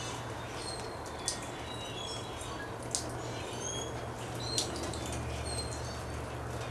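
Birds chirping in short high calls, with three brief sharp ticks and a steady low hum underneath.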